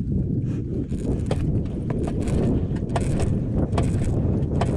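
A 15-horsepower outboard motor that has just started readily, running at idle with a steady low rumble and occasional sharp clicks over it.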